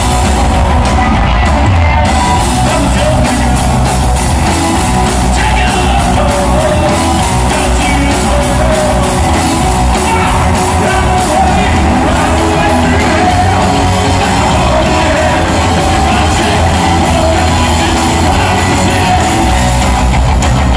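A rock band playing live in a large hall: electric guitars, bass and drum kit, with a singer's shouted vocals over them.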